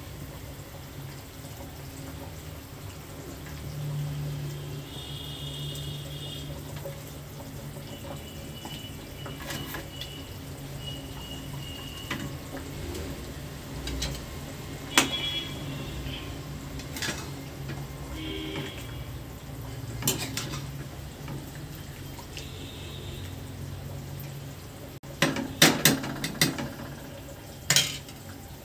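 Steel cookware clinking: a few single metallic clinks, then a quick cluster of clatters near the end, over a steady low hum.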